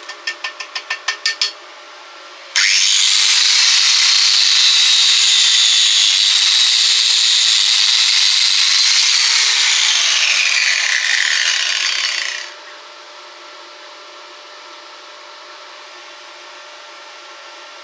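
Rapid tapping, about six strikes a second, that stops within the first second and a half. Then a power tool, an angle grinder on metal, starts abruptly and runs about ten seconds with a steady high whine; the pitch sinks near the end and the tool cuts off suddenly.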